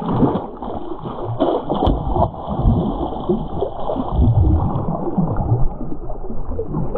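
A hooked largemouth bass leaping and thrashing at the surface beside a kayak, splashing hard and repeatedly as it is brought to the net. The splashing starts suddenly and comes in irregular loud bursts.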